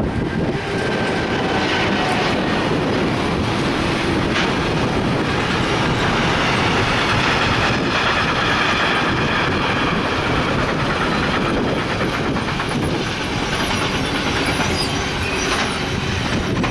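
Freight train wagons rolling past: tank wagons and then goods wagons, a loud, steady rumble and clatter of wheels over the rails with faint thin high tones mixed in. The noise falls away sharply at the very end as the train clears.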